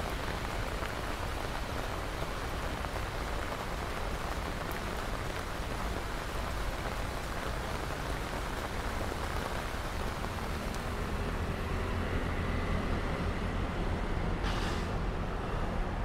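Heavy rain pouring down onto a wet pavement: a steady, even hiss of countless drops splashing.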